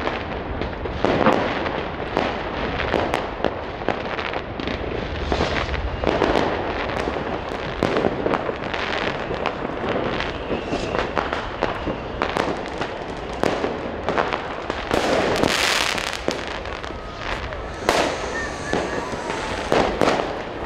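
New Year's Eve fireworks going off all around: a dense, irregular barrage of bangs and firecracker pops over continuous crackle, with a louder, longer burst about fifteen seconds in.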